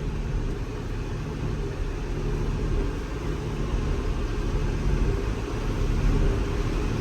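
Tractor and AGCO large square baler running steadily while baling wheat straw, heard as an even low rumble from inside the tractor cab.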